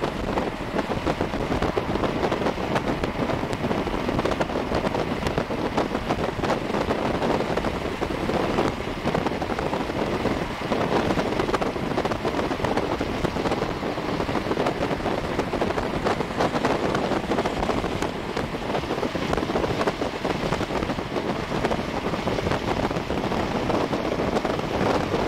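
Steady rushing road and wind noise of a car travelling at speed, heard from inside the vehicle, with no clear engine tone.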